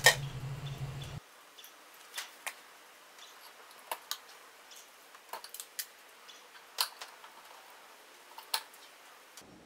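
Hand wire stripper snipping and clicking as it strips insulation from the ends of the individual cable conductors: irregular sharp clicks and snips, the loudest right at the start. A low hum stops about a second in.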